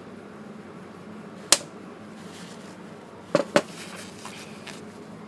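A few sharp clicks and taps from small parts and tools being handled while a motorcycle front brake master cylinder is stripped: one loud click about a second and a half in, then two quick clicks close together after about three seconds, over a steady low hum.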